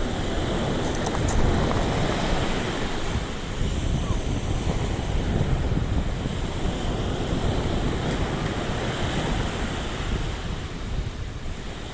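Surf washing onto a beach, with wind buffeting the microphone: a steady rushing noise.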